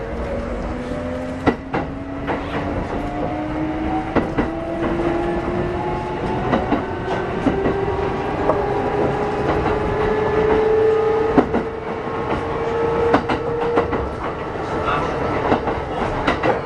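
Kintetsu 8600 series electric train running: the whine of its traction motors climbs steadily in pitch as it accelerates, fading after about fourteen seconds. Wheels click over rail joints throughout.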